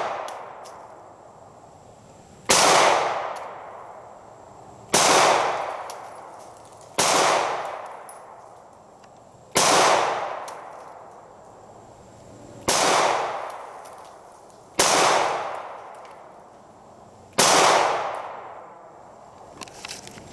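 Glock 43 9mm pistol fired seven times in slow aimed shots, about two to three seconds apart, each crack trailing off in a long echo.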